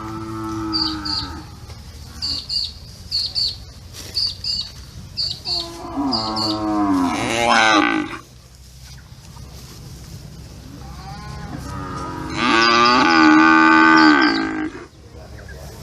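Cattle mooing: three long lowing calls. A weaker one comes at the start, a long one about six seconds in that sinks and then rises in pitch, and the loudest and longest near the end.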